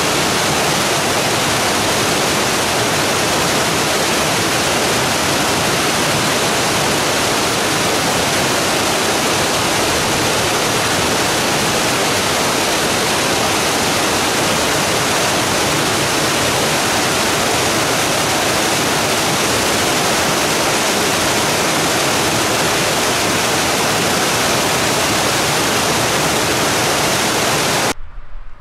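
Small waterfall and cascading mountain stream pouring over rocks: a steady, loud rush of water that cuts off suddenly near the end.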